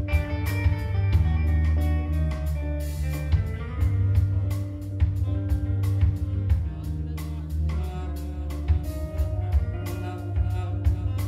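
Jazz-fusion band playing: an electric guitar line over a strong bass and a steady drum-kit beat.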